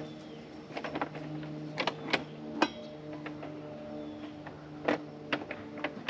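Scattered sharp clicks and knocks from a Ridgid job-site table saw and tools being handled while the blade is checked and adjusted for square, over a steady low hum.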